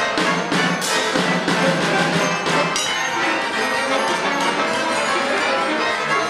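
Live accordion playing held chords, with a percussionist's mallet strikes on metal and drum percussion coming several a second in the first half, then giving way to the sustained accordion.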